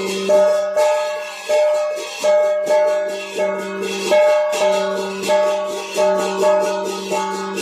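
Traditional Vietnamese plucked string instrument playing a slow melody. Single notes are plucked about twice a second and ring out over a lasting low note.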